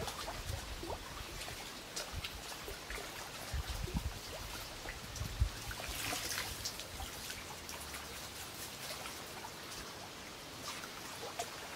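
Lake water splashing and trickling as a wire-mesh crayfish trap is hauled up through the shallows by its rope, with many small drips and a louder splash about six seconds in.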